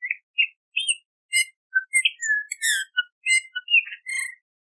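Eurasian bullfinch calling: a quick run of short chirps and whistled notes, uneven in pitch, that stops shortly before the end.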